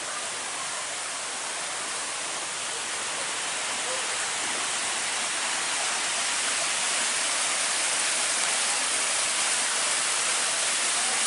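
Steady rush of a waterfall, growing slowly louder.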